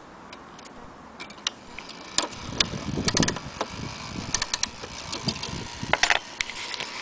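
Irregular mechanical clicks and clatter from a vintage Junghans strike wall clock's movement, with a denser burst of clicks and knocks about three seconds in and again near the end.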